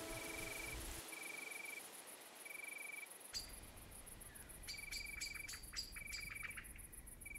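Forest ambience: crickets chirping in short trills about once a second over a steady high insect trill, with quick runs of bird chirps from about halfway through.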